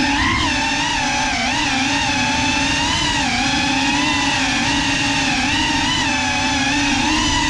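GEPRC CineLog35 cinewhoop's motors and ducted propellers whining in flight, a steady buzzing tone that wavers up and down in pitch as the throttle changes.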